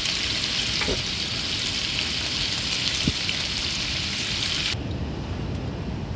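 Streaky bacon sizzling and crackling in a frying pan on a portable gas stove, with a single knock about three seconds in. The sizzle cuts off suddenly near five seconds, leaving a low wind rumble.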